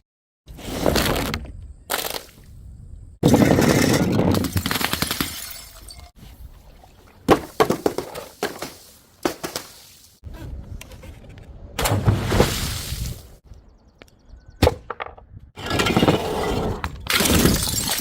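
Glass bottles smashing and shattering, one after another in separately cut clips, each a sharp crash followed by shards clinking and scattering.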